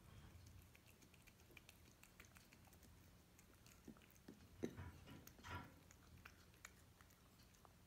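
A cat crunching dry kibble: faint, irregular crunches and clicks, with a short run of louder crunches a little past the middle.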